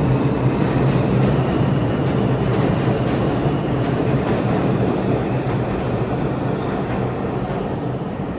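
New York City IRT subway train running through the station at speed: a steady rumble of wheels on rail that slowly fades as the last cars clear.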